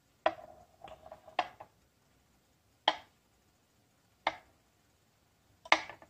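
Six sharp taps at uneven intervals, the first few joined by a short steady hum.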